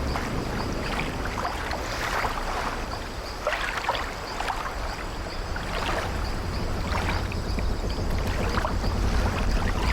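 Sea waves washing against a wooden sailing ship with a low rumble, while the ship's old timbers creak now and then, about once every second or two.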